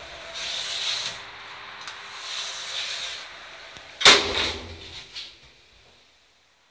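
Automatic sliding doors of a hydraulic lift car closing: two hissing swells as the panels slide, then a sharp bang as they shut about four seconds in, with a few lighter knocks after. It then goes quiet.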